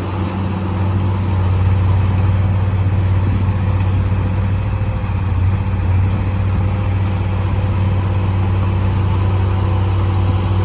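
Heavy diesel engine of earthmoving machinery running steadily, a low even drone with no breaks.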